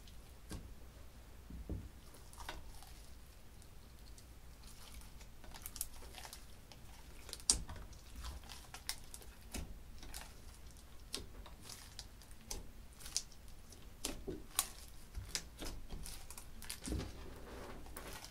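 Slime being pressed, stretched and kneaded by hand in a glass dish: irregular small sticky clicks and pops, with a softer squelch near the end.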